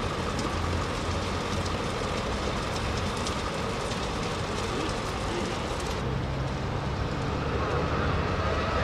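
A train on the tracks making a steady rumble with a low hum. About six seconds in, the hiss fades and a deeper hum sets in.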